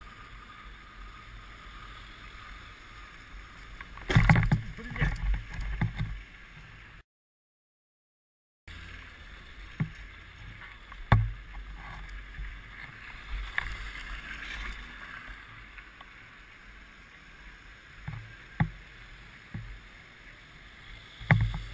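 Motorcycle ride heard from a helmet-mounted camera: steady wind rush and engine noise, with a spell of loud buffeting about four seconds in and a short cut to silence a few seconds later. Scattered sharp knocks follow, ending in a loud thump near the end.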